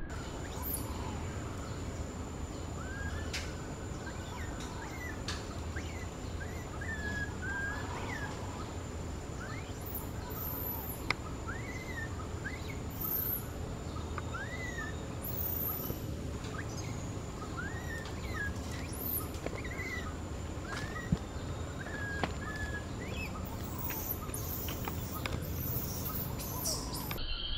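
Baby macaque crying: short squeaky calls, each rising then falling in pitch, repeated about every second or two. Very high chirps and a steady high whine run beneath.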